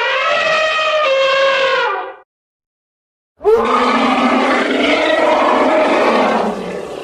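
Elephant sound effects: a trumpeting call with a clear pitch lasting about two seconds, then, after a short silence, a rougher, noisier roar that fades out near the end.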